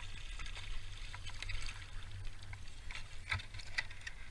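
Water lapping and splashing around a fishing kayak, with scattered small clicks and taps over a steady low rumble.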